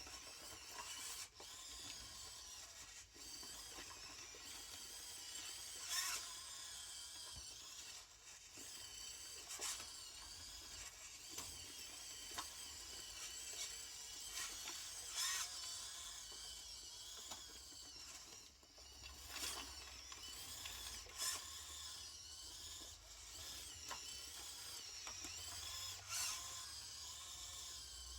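Small electric motor whining at a high, wavering pitch, with scattered clicks and knocks throughout.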